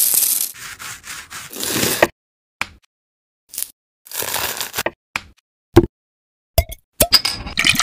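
A string of short food-prep sounds cut together with silent gaps: a lemon scrubbed with salt, gritty rubbing and crunching for about two seconds. Then a handful of separate brief scrapes and knocks as the lemon slices are handled, and a few sharp clicks near the end.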